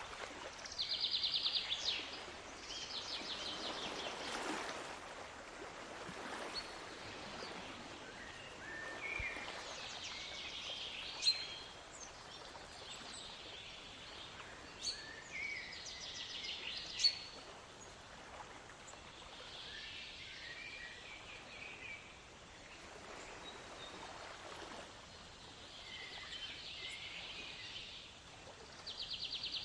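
Songbirds chirping and calling over a steady wash of waves, with a fast pulsed trill about a second in and again near the end, and two sharp chips in the middle.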